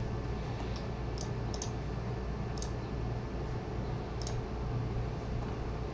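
A handful of faint, sharp computer mouse clicks, about five spread over a few seconds, over a steady low hum of room noise.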